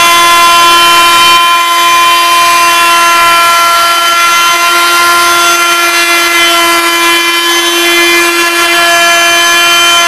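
Handheld wood router running at speed with a steady high whine, its round-over bit cutting along the edge of a wooden rail.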